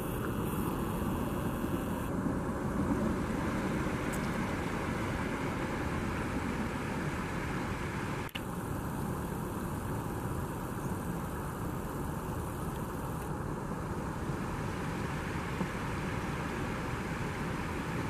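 Shallow river water rushing steadily over a low rocky ledge and through riffles, a constant even rush with a brief dip about eight seconds in.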